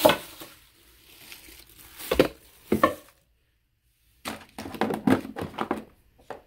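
Plastic cosmetic bottles, jars and tubes clicking and knocking against each other as hands rummage through a drawer full of skincare products, with a sharp knock at the start and two duller thuds a couple of seconds in.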